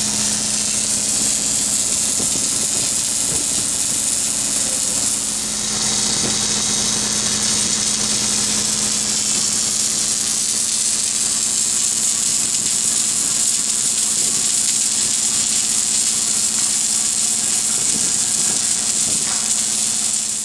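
Submerged arc welding equipment running on a pipe joint: a steady machine hum with a constant low tone under a high hiss, dipping briefly about five seconds in.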